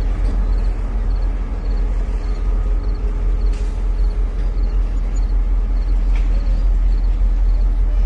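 Train running with a steady, heavy low rumble, and a faint high ticking repeating about twice a second.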